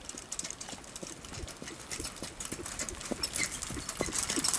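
Harness trotter's hooves clip-clopping on a gravel track as the horse trots pulling a sulky, a quick run of sharp hoofbeats getting louder toward the end as it comes closer.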